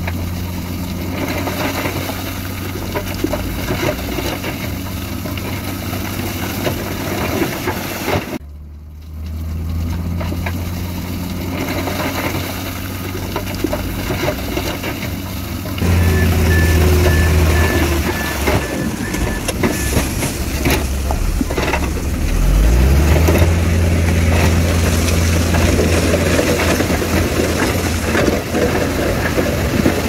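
Heavy diesel dump-truck engines running, with one engine revving up about two-thirds of the way through. A short run of evenly spaced high beeps sounds around the middle, and the sound drops out briefly about a third of the way in.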